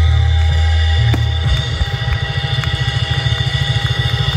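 Loud music with heavy bass and held notes, breaking into a fast pulsing beat about a second and a half in, with a few sharp pops of fireworks bursting over it.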